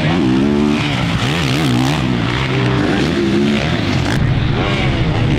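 Motocross bike engines revving on the track, the pitch rising and falling over and over as the throttle is opened and closed.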